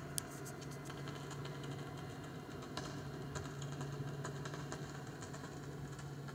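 Tram passing at a distance with a steady low hum, and irregular short crackling clicks over it, the sound of the pantograph sparking on the overhead wire.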